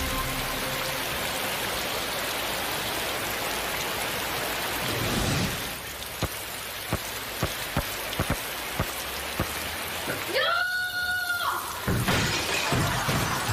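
Rain pouring steadily, thinning about six seconds in to scattered sharp taps, with a short high-pitched cry about ten seconds in before the pouring noise returns near the end.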